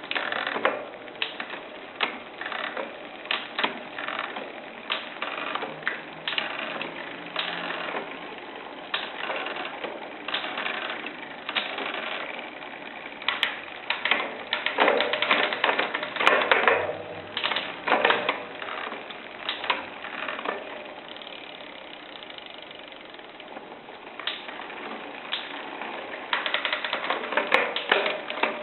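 Shimano Zee RD-M640 rear derailleur with its clutch switched on, creaking and clicking again and again in irregular bursts as the gears are shifted. The creak comes from the clutch and calls for cleaning and regreasing, failing that a replacement part.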